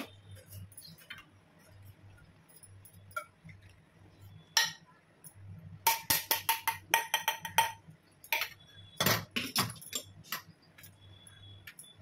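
Stainless steel kitchenware clinking: a steel saucepan and tea strainer knocking against steel cups as tea is poured. A quick run of light clinks comes about six seconds in, and a few heavier knocks follow about nine seconds in.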